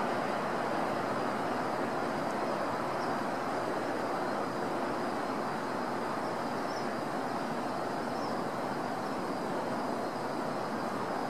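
Shinkansen train pulling away from the station at low speed: a steady rumble of wheels and running gear that eases slightly as it recedes.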